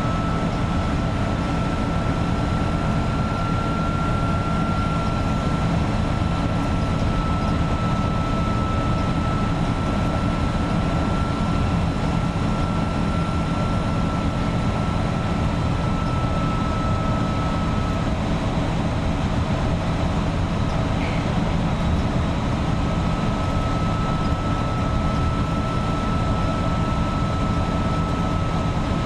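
Iveco 170S28 bus's diesel engine running at steady cruise under a shrill turbocharger whistle held at one pitch, which drops out briefly about two-thirds of the way through and then returns. The turbo noise is put down to a turbo problem the bus has had since it left the factory.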